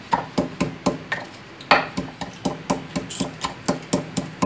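Wooden pestle pounding coriander leaves, green chillies and salt in a deep wooden mortar: a steady run of knocks, about four a second, with a short pause a little over a second in.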